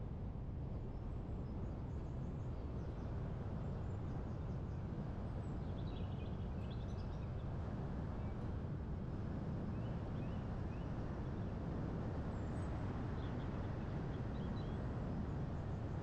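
Steady low rumble of wind and road noise from a car driving along, with faint bird chirps about six seconds in and again near the end.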